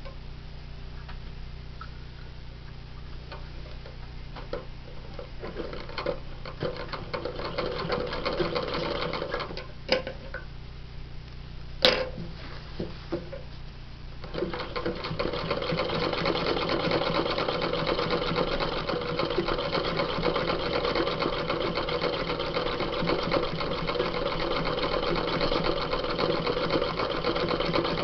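Domestic sewing machine stitching free-motion embroidery through denim held in a hoop. It starts with slow, scattered stitches and clicks, including two sharp clicks around ten and twelve seconds in. From about halfway it runs steadily at speed.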